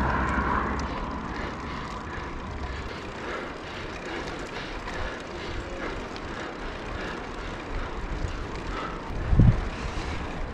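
A road bike climbing, heard through a handlebar-mounted action camera as a steady drone of wind and rolling noise, with a short low buffet about nine seconds in.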